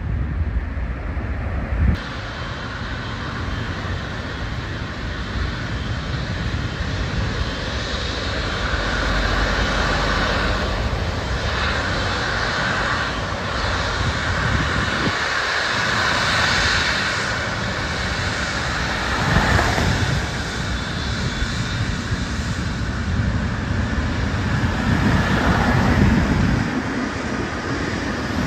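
Jet engines of a Saudia Boeing 777 rolling along the runway past the fence: a steady rush with a whine that swells as it draws level and passes. The sound changes abruptly about two seconds in.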